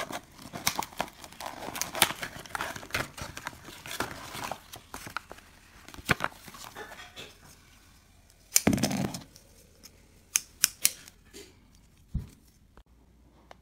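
A clear plastic blister pack being pulled open by hand, crackling and crinkling with many sharp snaps and clicks. The loudest crunch comes about two-thirds of the way through, followed by a few separate clicks.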